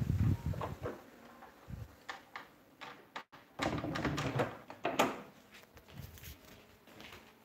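A wooden panelled door being handled and opened by hand: rubbing, clicks and knocks, busiest about three and a half seconds in and ending with a sharp knock near five seconds. Low thumps at the start come from the phone being handled.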